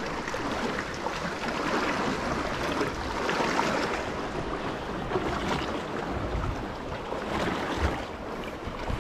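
Calm sea water lapping and washing gently against the kayak's hull and the rocks, a steady wash with a few soft splashes, and some low wind rumble on the microphone.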